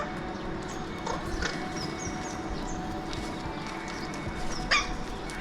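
Alexandrine parakeets calling: a few harsh squawks that sweep sharply downward in pitch, the loudest near the end, with short high chirps in between.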